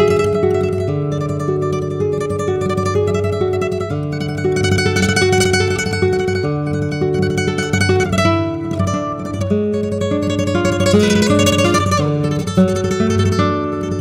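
Solo flamenco guitar playing a taranta: a plucked melody over ringing bass notes, with a quick flurry of notes about eleven seconds in.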